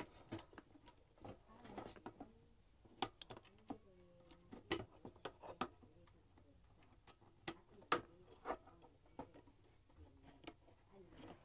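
Scattered small clicks and taps of an electric thermos pot's parts being handled and fitted back together during reassembly, with a few sharper clicks about halfway through and later on.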